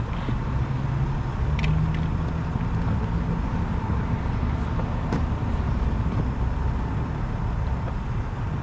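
A vehicle engine idling nearby as a steady low rumble, with a few faint clicks over it.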